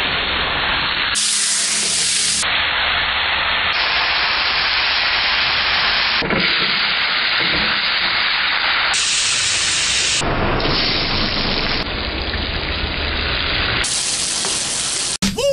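Hot oil sizzling in a wok over a high gas flame as green chilies and shallots are stir-fried. It is a steady, loud hiss, spliced from several short clips.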